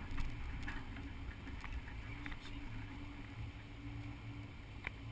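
Toyota Land Cruiser running at low speed, a steady low rumble with a faint hum over it and a few light ticks and rattles.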